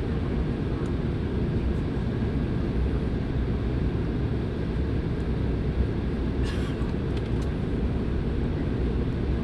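Steady low roar inside a jet airliner's passenger cabin on descent, engine and airflow noise with no change in level. A brief, sharper sound stands out about two-thirds of the way through.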